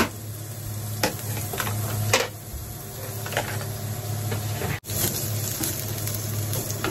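Butterbur (fuki) stalks frying in olive oil in an aluminium pan, a steady sizzle with a few light clicks, and the sound cuts out briefly just before five seconds in.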